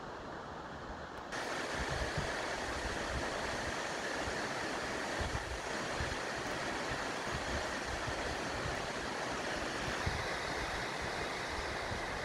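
Steady rush of falling water from a waterfall and creek, with wind buffeting the microphone in a low rumble. The rush grows louder and brighter about a second in.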